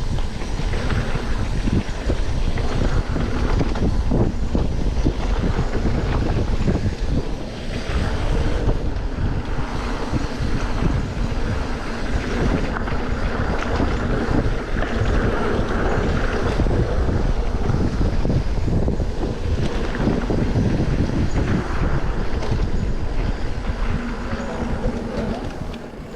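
Wind buffeting the microphone in a steady rushing noise, with dense crackling underneath.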